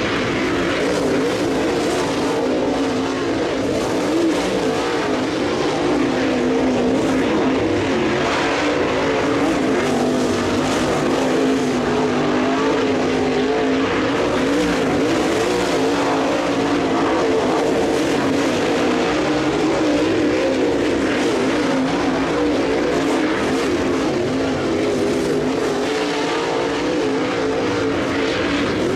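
A field of dirt late model race cars running at speed, several V8 engine notes sounding together and wavering up and down in pitch without a break.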